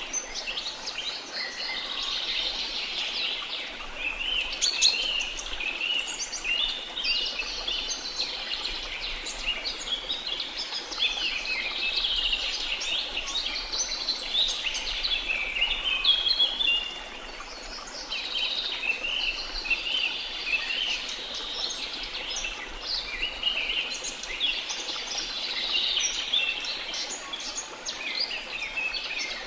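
A dense chorus of many birds chirping and trilling without pause in a tropical rainforest, over a faint steady hiss. The chorus eases briefly a little past halfway.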